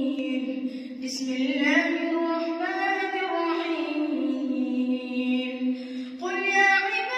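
A boy's voice reciting the Quran in melodic tajweed style, drawing out long, slowly wavering notes. The voice breaks off briefly near the end before starting a new phrase.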